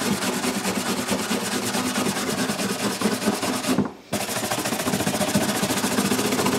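A small stainless steel brush scrubs back and forth over the plastic surface of a lawnmower fuel tank in quick rasping strokes, roughing and cleaning it before plastic welding. It stops briefly about four seconds in, then carries on.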